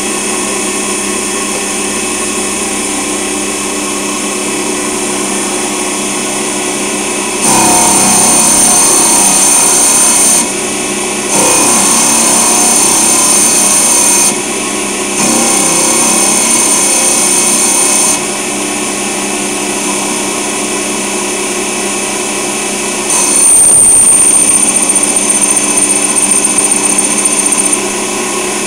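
Hercus PC 200 small CNC lathe running at 2000 RPM with a steady machine hum, cutting aluminium. About a quarter of the way in come three loud cuts of about three seconds each, with short pauses between. Near the end comes a longer, louder cut with a high whine.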